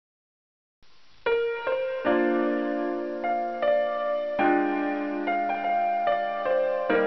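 Piano music begins about a second in: single melody notes over held chords that change every couple of seconds.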